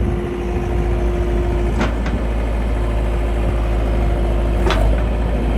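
John Deere 320 skid steer's 66-horsepower diesel engine running steadily, with a steady whine over it and a few sharp clicks, about two seconds in and again near the end, where the whine cuts off.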